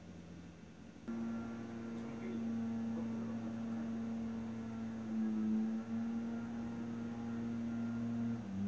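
A steady low hum with a few overtones, starting suddenly about a second in and wavering briefly in pitch near the end.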